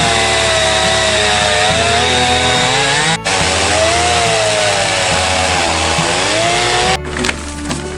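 Chainsaw cutting through a downed tree, its engine pitch sagging and recovering as the chain bites under load. The sound breaks off briefly about three seconds in and stops abruptly near the end, where music takes over.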